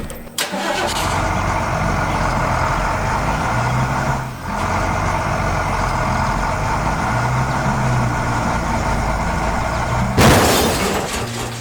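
A heavy vehicle's engine running steadily with a low hum, dipping briefly partway through. About ten seconds in comes a sudden loud hissing crash.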